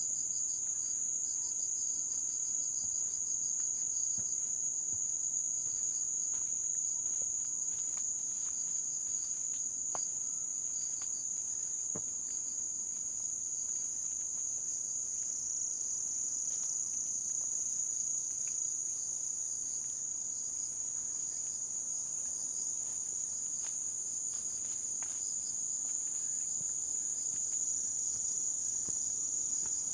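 Steady, high-pitched chorus of insects singing without a break, with faint scattered ticks of footsteps on the forest path.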